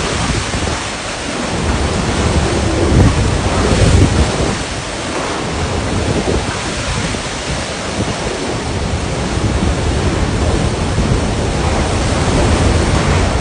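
Hurricane wind blowing hard in gusts and buffeting the microphone, with the strongest gust about three to four seconds in.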